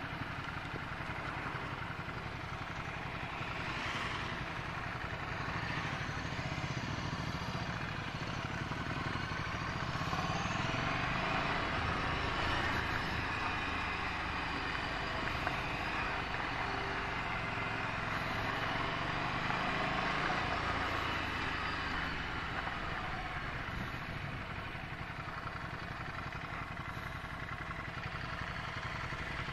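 Ducati Scrambler Sixty2's 399 cc air-cooled L-twin engine running as the bike rides at low speed, its note rising and falling with the throttle.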